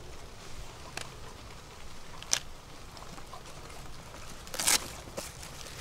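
Faint handling noises as hands rummage in a canvas backpack: a sharp click about two seconds in and a short rustle near the end.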